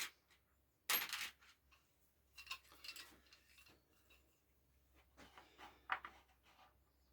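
Faint small metal clinks and clatters in a few short bursts, from handling metal workshop hardware such as the G-clamp and threaded inserts.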